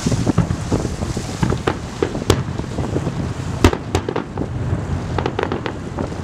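Fireworks display: aerial shells bursting one after another in a dense run of bangs, the loudest about two-thirds of the way through.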